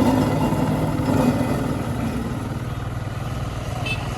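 Diesel engine of a CAT 462F backhoe loader running steadily, easing off slightly about halfway through.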